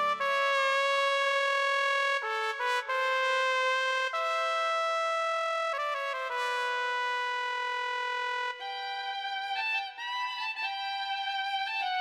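Yamaha Montage synthesizer playing a slow single-note melody on a trumpet-like brass voice, each note held for a second or two. About eight and a half seconds in, the tone turns to a violin-like string voice with vibrato.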